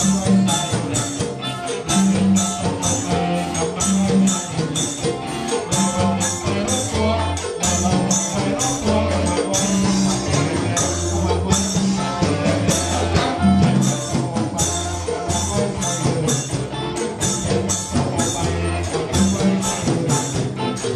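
A band playing lively dance music with a steady beat and a repeating bass line.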